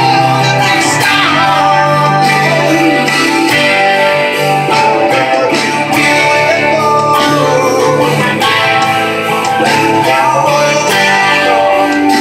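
Electric guitar playing in a slow rock song, with singing in the mix.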